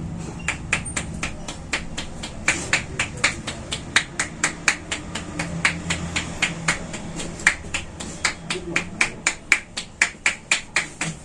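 Percussion head massage by the barber's hands, striking in a fast, even rhythm of crisp clicking claps, about four to five a second.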